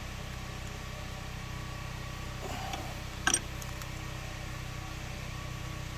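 A steady low mechanical hum, with one sharp metal click about three seconds in from a crescent wrench against a side-post battery terminal.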